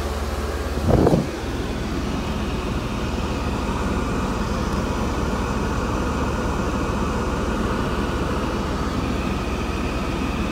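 High-speed electric auxiliary cooling fans of a 1992 Mercedes 300E (W124) running steadily, with the engine idling and the AC on high. The fans are switched on by a manual switch, a workaround for the car's non-working high-speed fan function. A brief loud thump comes about a second in.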